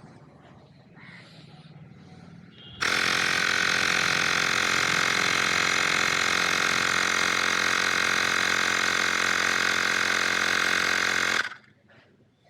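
Xiaomi Portable Electric Air Compressor 1S running steadily as it inflates a car tyre, for about nine seconds, then cutting off suddenly: it has reached the set pressure of 33 and shut itself off automatically.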